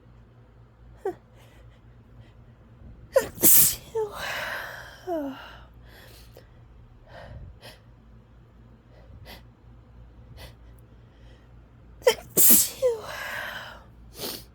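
A woman sneezing hard twice, about nine seconds apart, each sneeze preceded by short pitched in-breaths as it builds, with faint sniffs and breaths in between: an allergy sneezing fit.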